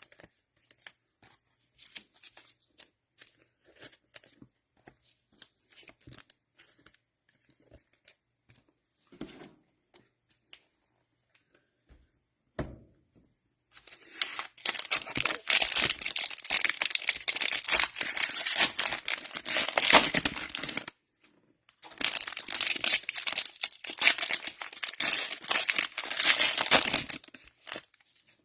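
Plastic cello-pack wrappers of football trading cards being torn open and crinkled: two long spells of loud crinkling, the second starting about a second after the first stops. Before them, about halfway in, only faint light ticks and a single knock.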